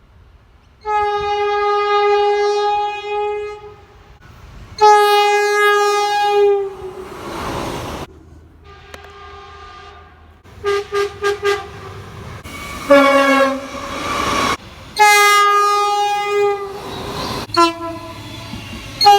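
Locomotive air horns sounding a series of chord blasts. There are several long blasts of two to three seconds each, a quieter held tone in the middle, and bursts of quick short toots, about four in a row, around the middle and near the end.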